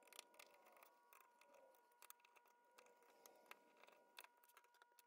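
Near silence with faint, scattered small clicks: a screwdriver backing small Phillips screws out of a circuit board, and loose screws being set down.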